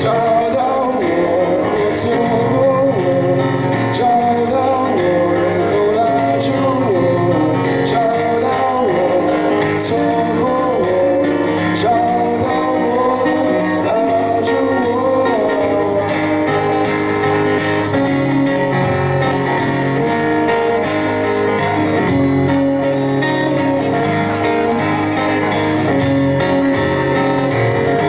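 A man singing to his own acoustic guitar accompaniment, amplified through a stage PA.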